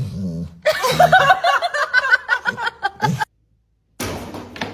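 High-pitched laughter in quick rhythmic pulses, cut off suddenly about three seconds in.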